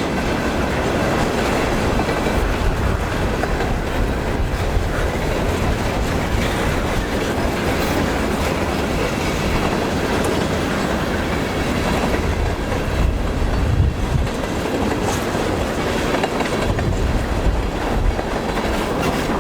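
A freight train's cars rolling past: steel wheels clacking over rail joints over a steady low rumble, with scattered sharper knocks.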